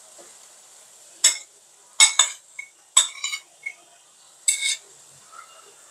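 Metal spatula clinking against a ceramic plate and the aluminium karahi while pieces of fish are scraped off the plate into the pan: a string of sharp, ringing clinks, roughly one a second.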